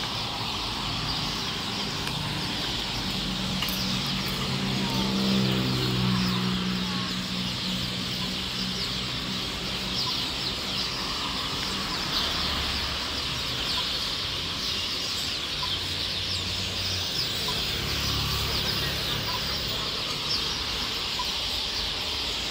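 Street traffic at a city junction: car engines passing through, louder about a third of the way in and again later, over a steady high-pitched hiss.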